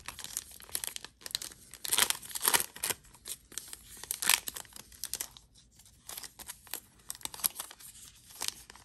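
The foil wrapper of an NBA Hoops trading-card pack being torn open and crinkled by hand: a run of irregular crackles, sharpest about two seconds in and again just after four seconds.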